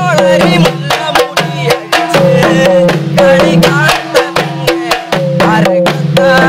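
Kerala folk percussion: chenda drums and small waist-hung drums beaten with sticks in a fast, steady rhythm, several strokes a second, with a pitched melody line over them that bends into each note.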